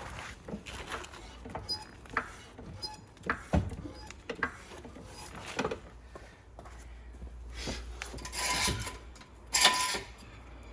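Scattered metal knocks and clatter as a steel axle stand is set under the car, with two louder scrapes near the end.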